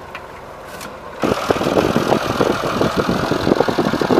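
A farm tractor's engine running loud with a fast, irregular clatter. It cuts in suddenly about a second in, after a quieter start.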